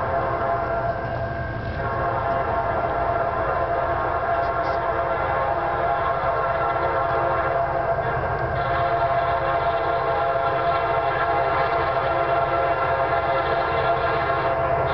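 Air horn of an approaching CSX freight train's lead locomotive, an EMD SD70MAC, held as one long continuous chord of several tones over a low rumble.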